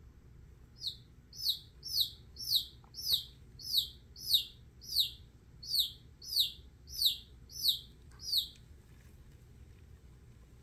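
Baby chicken chick peeping: about thirteen loud, high peeps, each falling in pitch, at a steady pace of nearly two a second, stopping a couple of seconds before the end. This loud, repeated, falling peep is a chick's distress call.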